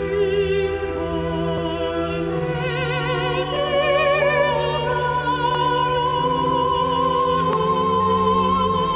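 Operatic singing voice with instrumental accompaniment, the voice singing with a wide vibrato and holding a long high note from about four seconds in.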